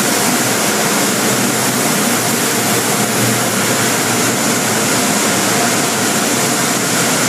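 Car wash air-dryer blowers running with a loud, steady rush of air.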